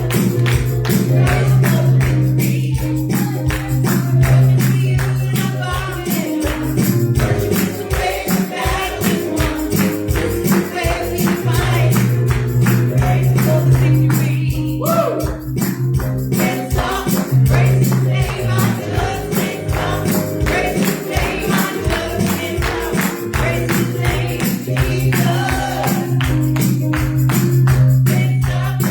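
Live worship music with a fast steady beat, tambourine and singing.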